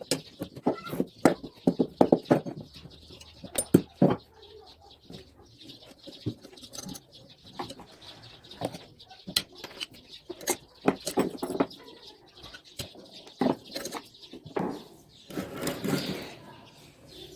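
Irregular sharp metal knocks and clinks from hand tools working on a washing-machine motor as it is taken apart to reach its bearings.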